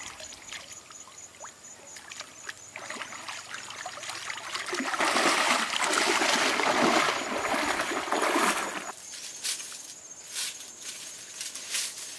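Legs wading through a shallow muddy pool: water splashing and sloshing, loudest for about four seconds in the middle. After that it gives way to scattered crackles of dry grass and twigs underfoot.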